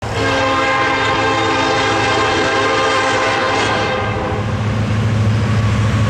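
Union Pacific freight locomotive's air horn sounding a long chord of several notes, which cuts off about four seconds in. The locomotive's engine hum and the rumble of the approaching train carry on after it.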